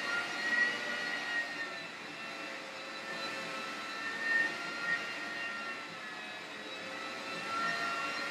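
Hoover floor scrubber running on tile, a steady motor whine whose pitch wavers slightly.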